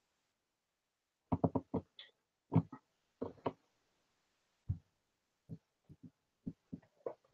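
Loose LEGO pieces being gathered up and set down on a tabletop: a run of irregular small knocks and clicks, bunched about a second in and then spaced out singly.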